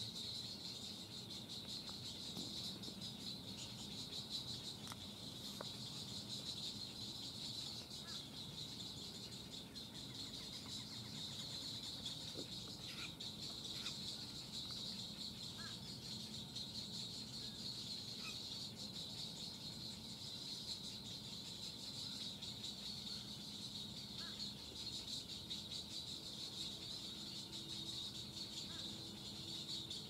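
Steady, high-pitched chorus of insects, like crickets, with a few brief, faint bird chirps scattered through it.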